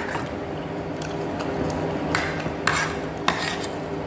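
Wooden chopsticks stirring and lifting noodles in a bowl, with a few short clicks and scrapes against the bowl about two to three seconds in, over a steady low hum.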